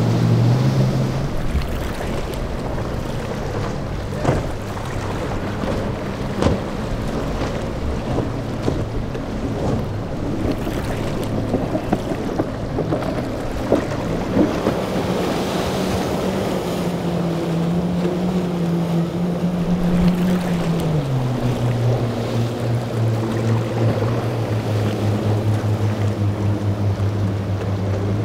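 Outboard motors of boats running through choppy inlet surf, a steady engine drone that drops to a lower note about two-thirds of the way through, over the rush of breaking waves and wind on the microphone. A few short thumps stand out.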